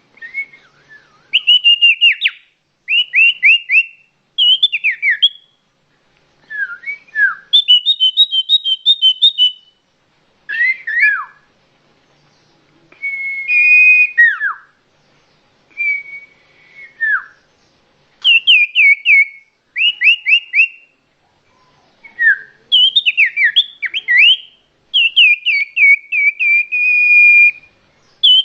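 A songbird singing loud, varied phrases of clear whistles and quick runs of down-slurred notes, with short pauses between phrases.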